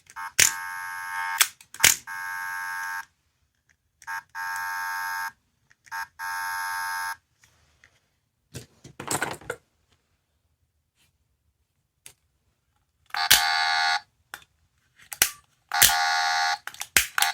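A small electronic sound toy from a capsule-toy machine plays short buzzer-like electronic tones, each about a second long, several times over. Sharp clicks come between the tones, and the toy falls silent for a few seconds in the middle.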